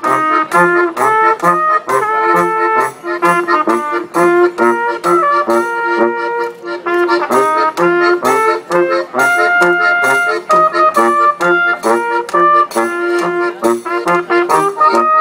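Live Austrian folk brass music: a trumpet carries the melody over a Steirische Harmonika (button accordion) and a tuba bass, in a steady oom-pah beat.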